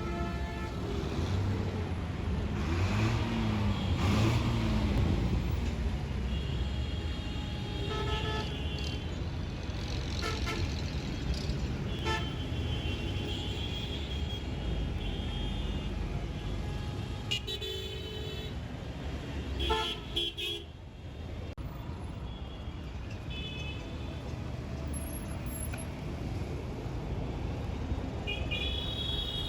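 Heavy road traffic: a steady rumble of engines with many vehicle horns honking, some in short toots and some held for a second or two, throughout.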